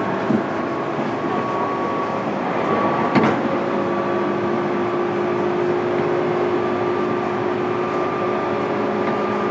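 Inside a JR East 205 series electric train's motor car (MoHa 205-608, MT61 traction motors), a steady hum with held tones over rail running noise. There is a single knock about three seconds in.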